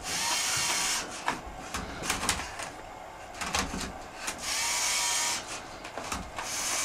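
Lego Mindstorms NXT servo motors whirring in spells of about a second as the robot turns and flips a Rubik's Cube, three times, with plastic clicks of cube layers turning in between.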